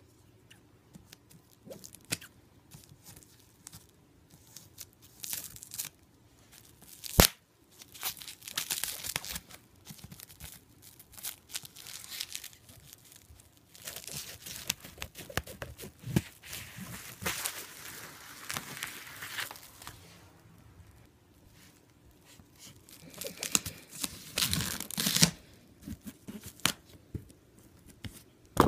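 Adhesive tape being pulled off the roll in long rasping stretches and wrapped around a travel bag, with crinkling between pulls and a sharp click about seven seconds in.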